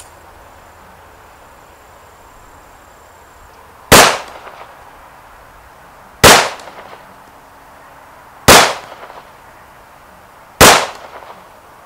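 Colt 1911 Competition pistol in .45 ACP firing four slow aimed shots, a little over two seconds apart, each with a short echo.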